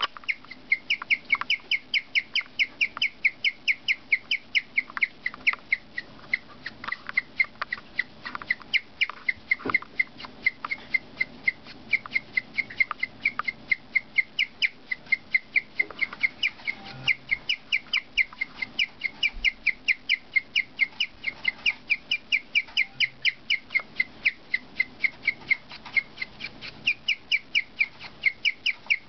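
Guinea pig chirping: a long, unbroken run of short, high, bird-like chirps at about four a second.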